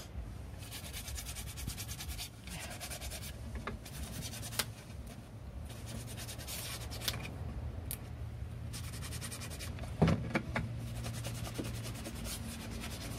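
Nail file rubbing back and forth by hand to sand small details, in several spells of quick rasping strokes. There is a single sharp knock about ten seconds in.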